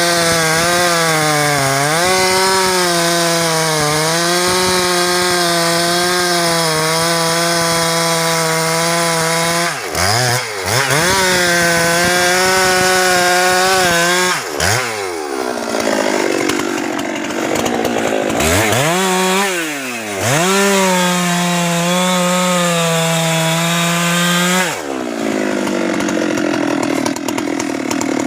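Husqvarna 390XP two-stroke chainsaw running at high revs while sawing into teak wood. Its pitch drops and climbs back several times as the throttle is eased and squeezed again, then falls to a lower, rougher note near the end.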